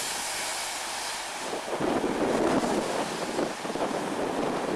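Wind buffeting the microphone while a Class 158 diesel multiple unit runs in towards the platform. Its engine and wheel noise grows louder from about two seconds in.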